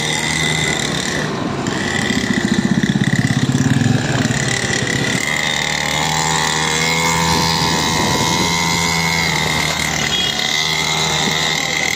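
Small 49cc petrol mini dirt bike engine running as the bike rides along, heard from a scooter following close behind, with the scooter's own engine and road noise mixed in. The engine sound swells and pulses a couple of seconds in, and a higher engine whine holds through the middle.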